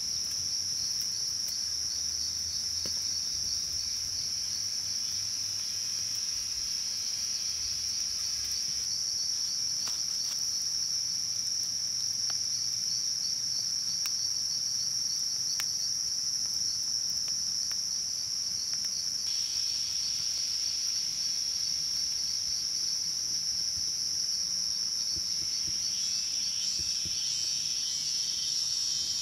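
Insects chirring in one continuous, high-pitched trill.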